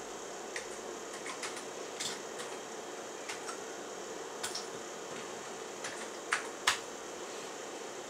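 Keys pressed one at a time on a Commodore Plus/4 keyboard, giving a scattered, uneven run of short clicks as a load command is typed. The two loudest presses come close together a little before the end, over a steady faint hum.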